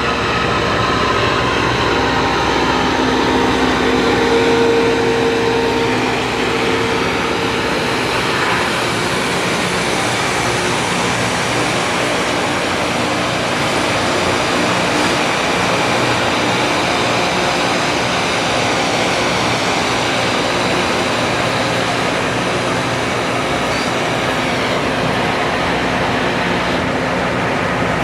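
Loram rail grinder at work: its grinding stones running against the rail with the machine's diesel engines underneath, a loud, steady rushing noise with a few faint hums.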